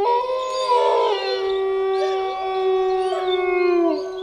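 Background music: a held chord drone of several steady tones, with a gliding, wavering melody line over it.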